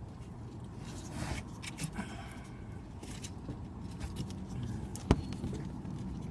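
Small clicks and scraping from handling a car's fog light socket and wiring connector by hand, with one sharp click about five seconds in, over a low steady background rumble.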